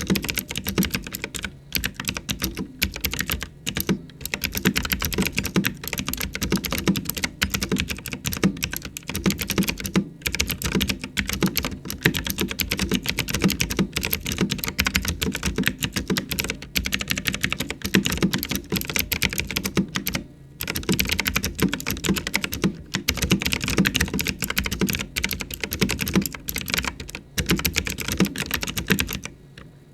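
Fast continuous typing on a mechanical keyboard with clicky Cherry MX Blue-clone switches under round typewriter-style keycaps: a dense stream of sharp clicks with a couple of brief pauses.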